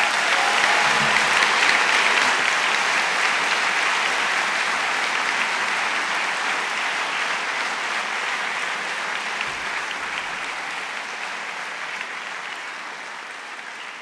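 Audience applauding, a dense, sustained clapping that slowly dies away toward the end.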